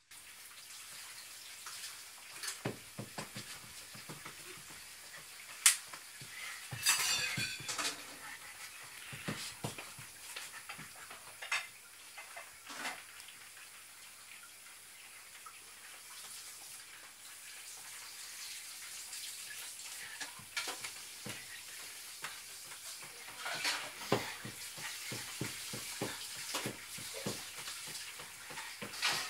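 Scattered light knocks and clicks over a steady hiss, with one sharp click about six seconds in and a short busier stretch just after.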